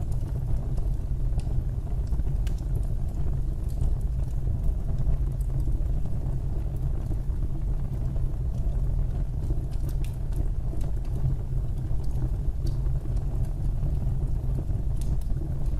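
Fireplace fire burning with a steady low rumble and scattered, irregular faint crackles and pops.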